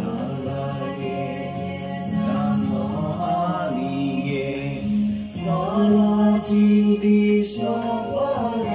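A man singing a slow devotional song over a musical backing, holding long notes.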